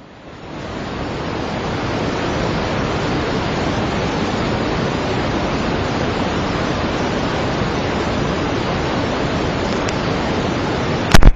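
Steady rushing noise of a fast, muddy flash-flood torrent, fading in over the first second and then holding even. A brief loud burst breaks in near the end.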